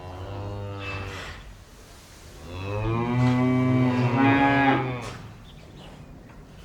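Cows mooing in a barn: one moo trails off about a second and a half in, then a second, louder and longer moo of about two and a half seconds falls away at its end.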